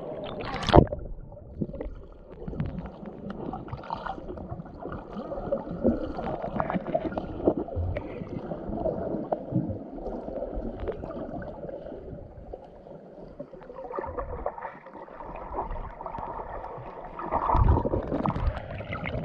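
Muffled sound of a camera held underwater in spring water: a sharp splash as it goes under about a second in, then a low gurgling rumble with scattered small clicks, with the high sounds cut away by the water.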